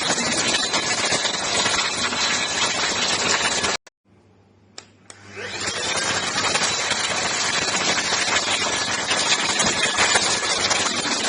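ENOLUX ST7000 cordless handheld vacuum cleaner running with a steady loud rush. Nearly four seconds in it cuts off abruptly; after two clicks the motor spins back up to full speed over about a second.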